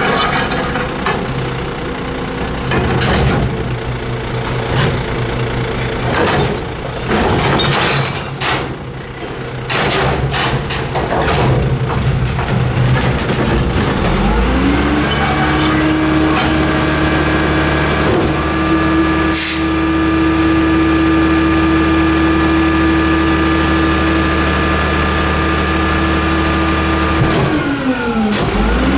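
Rear-load garbage truck on a WhiteGMC WXLL chassis working, with a run of knocks and bangs over the first half. About halfway in, the diesel engine speeds up and holds a steady higher speed; near the end it drops briefly and picks up again.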